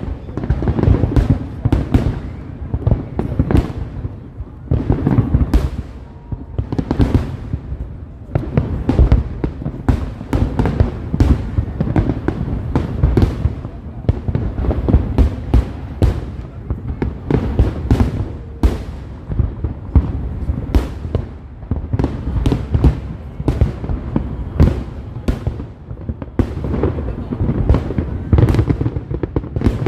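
Fireworks display: a rapid, unbroken string of sharp bangs and cracks over a low rumble.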